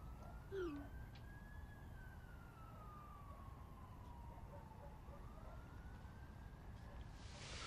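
A faint emergency-vehicle siren wailing, slowly rising and falling in pitch, over a steady low rumble.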